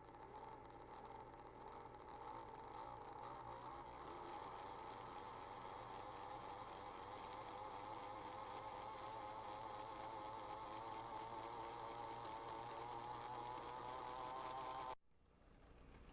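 HO scale model train's small electric motor running with a whine that wavers up and down in pitch, then cuts off abruptly near the end.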